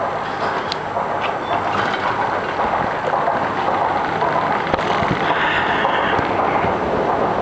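Steady noise of a metro station concourse and escalator, with a few light clicks and a brief higher hiss about five seconds in.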